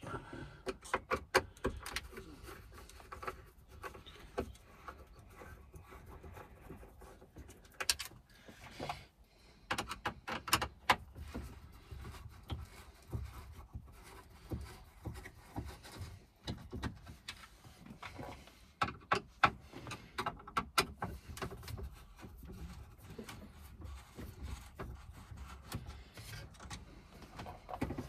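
Irregular clicks and taps, some in quick clusters, of a Torx screwdriver turning out the screws that hold the gear selector unit in a car's centre console, with hard plastic trim being handled.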